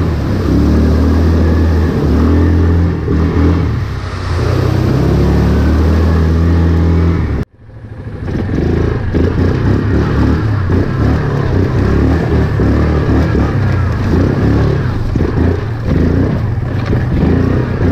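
Yamaha Kodiak 450 ATV's single-cylinder engine running as it is ridden, steady and loud for the first seven seconds or so. It cuts off abruptly for a moment, then runs again, rougher and more uneven.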